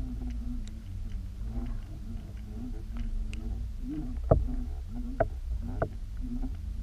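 Underwater noise as two jointed swimbait lures are pulled through the water: a steady low rumble with a wavering hum, and a few sharp clicks in the second half.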